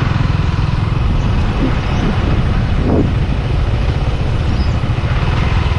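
Yamaha R15 V3's 155 cc single-cylinder engine running under way, a steady low drone with rapid firing pulses, mixed with wind rush.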